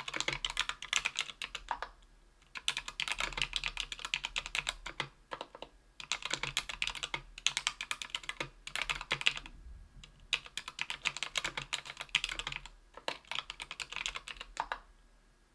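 Fast typing on a Tofu 60% aluminium keyboard with CannonKeys Lilac 65 g tactile switches lubed with Krytox 205g0, on an aluminium plate with lubed stabilizers. The keystrokes come in quick runs of a second or three with short pauses between, and stop shortly before the end.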